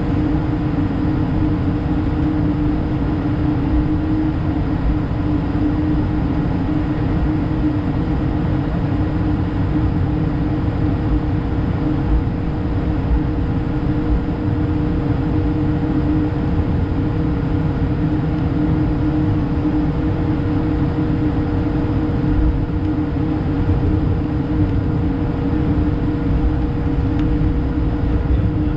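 Steady cabin noise inside an Airbus A220-300 by a window seat. A constant low rumble carries two steady humming tones and does not change.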